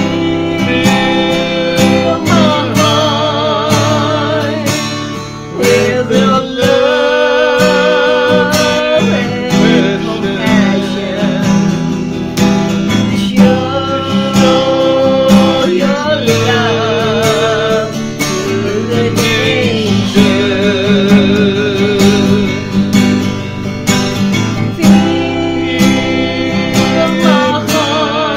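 A woman and a man singing a song together to a strummed acoustic guitar, the voices held in long notes with vibrato.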